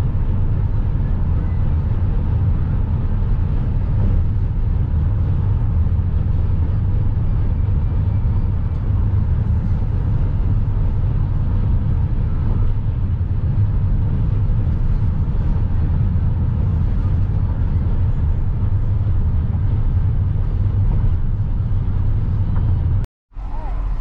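Steady low rumble of tyre and engine noise inside a moving car's cabin. It cuts off suddenly about a second before the end.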